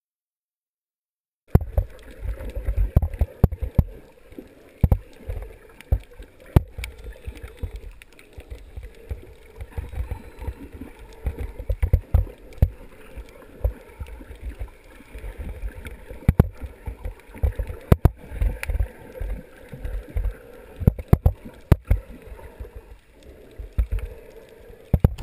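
Underwater sound picked up by a camera held below the surface while snorkeling: a low, muffled rumble of moving water with many irregular sharp clicks and knocks, starting about a second and a half in.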